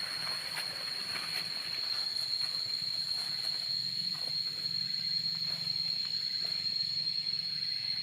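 Insects droning on one steady high pitch, over a low steady hum, with light rustling and a few soft clicks.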